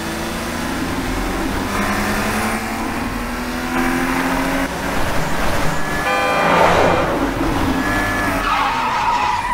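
Layered car sound effects: an engine revving, its pitch rising and falling, with tyres squealing and skidding. The loudest part is a noisy skid about seven seconds in, and a steady tyre squeal comes near the end.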